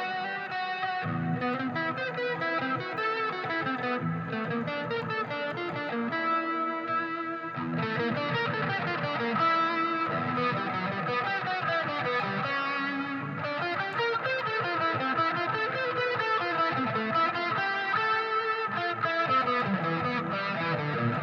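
Overdriven electric guitar played continuously through a multi-effects unit, with the distortion set up without the unit's drive (DRV) effect block.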